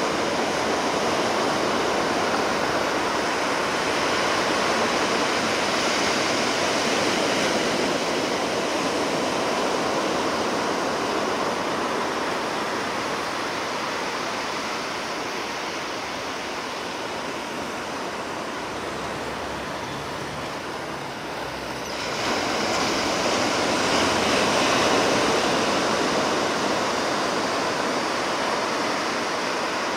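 Ocean surf: waves washing and breaking on the shore in a steady rush, easing to a lull about two-thirds of the way through before a fresh wave breaks and the rush swells again.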